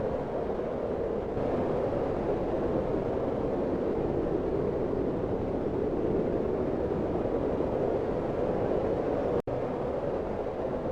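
Snowstorm wind blowing steadily, a dense, even rushing noise with no whistling tones, strongest in the lower middle range. It cuts out for an instant about nine seconds in.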